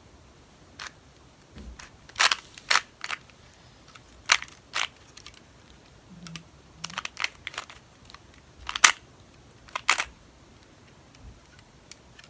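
Plastic clicks of a 2x2 Rubik's cube being turned by hand: irregular sharp clicks, some single and some in quick clusters, as the layers snap into place.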